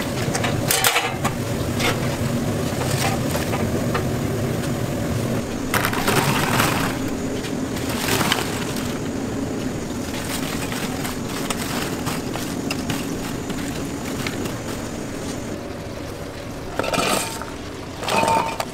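Kitchen noise while deep-fried chicken is handled: a steady sizzle and hum under crunching and crackling of the crisp fried pieces, with a few sharp clatters and short louder bursts near the end.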